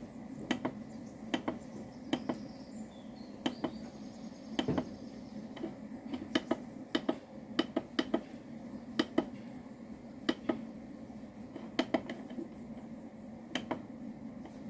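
Push buttons on an ML2430 MPPT solar charge controller clicking under a fingertip, in irregular presses about one or two a second, as the charge settings are stepped through in the menu.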